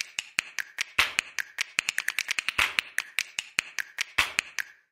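Background music with a quick, even beat of snaps and taps, about five a second, that drops out briefly just before the end.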